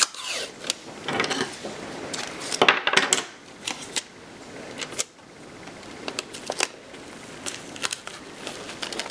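Tape being peeled off a small roll and torn, then pressed onto a fabric cap: a series of short rasps and clicks, the loudest a little before and around three seconds in.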